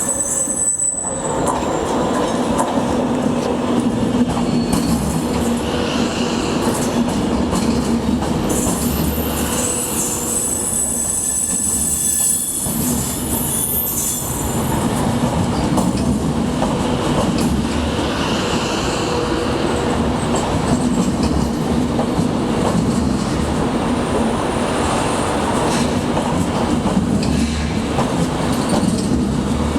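Electric passenger train running slowly over station track, steel wheels squealing high on the rails for a few seconds about ten seconds in, over a steady rumble and hum.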